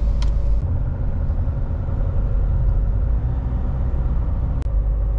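A car driving along a road, heard from inside the cabin: a steady low rumble of engine and tyres on the road.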